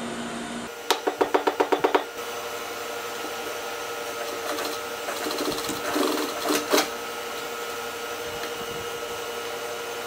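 Industrial sewing machine stitching through folded denim: a short burst of about ten needle strokes at about ten a second, then the motor humming steadily. A few more stitch or handling clicks come about halfway through.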